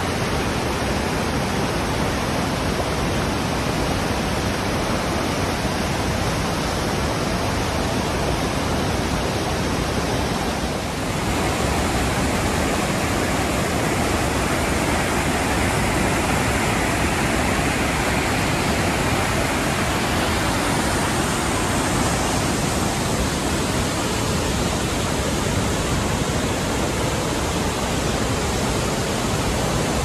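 Steady rushing of a large river waterfall and its rapids, a mass of water pouring over rock ledges. The sound dips briefly and shifts slightly about eleven seconds in.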